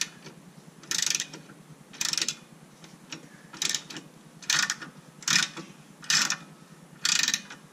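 Socket ratchet clicking in eight short bursts, about one a second, as it is swung back and forth to tighten the lower mounting bolt of a new rear shock absorber.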